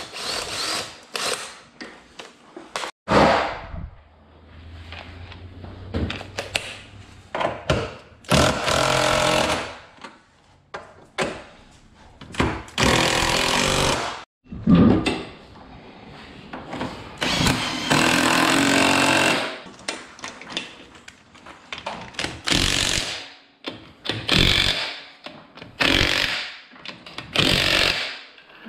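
Impact wrench hammering in repeated bursts of one to two seconds as it runs strut-top nuts and wheel lug nuts, with quieter clatter of tools and parts between the bursts.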